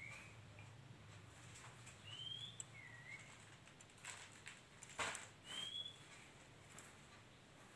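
A bird chirping faintly in short whistled notes, a few times over the seconds, over a low steady hum. A sharp knock about five seconds in is the loudest sound.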